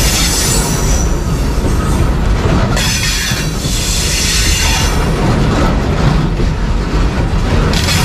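Coal hopper freight train's wagons rolling past close by, a steady heavy rumble and clatter of wheels on rail, with high-pitched wheel squeal rising over it early on and again about three seconds in.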